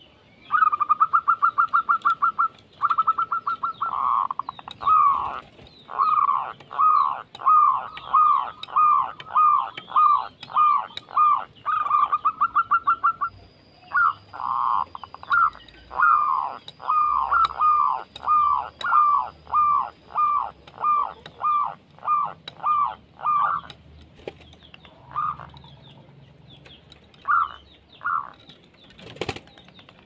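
Turtledove calling: a fast rattling trill, then a long run of short, downward-sliding notes about two a second, thinning to a few single notes near the end. Fainter high chirps sound behind it, and there is one sharp knock shortly before the end.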